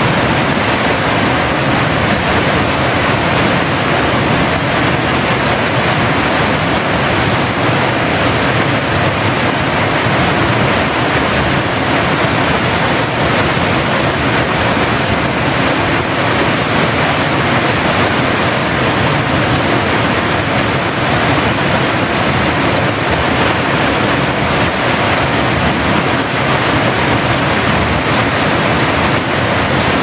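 Waterfall plunging into a pool inside a cave: a loud, steady rush of falling water.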